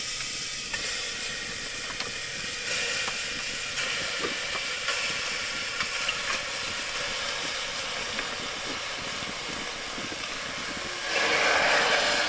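A cooking pot on the fire hissing steadily, with faint scattered crackles, as the pork cooks; the hiss swells louder near the end.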